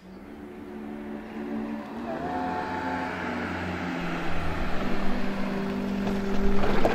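A car approaching with its engine running, growing steadily louder as it comes closer. Near the end its tyres crunch onto a gravel verge as it pulls over.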